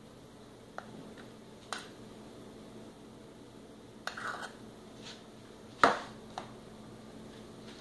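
Stainless steel measuring cup scooping cooked rice and knocking against the pot and a plastic meal prep tray: a few light clicks, a short scrape about four seconds in, then one sharp knock just before six seconds as the rice is tipped into the tray, followed by a smaller click.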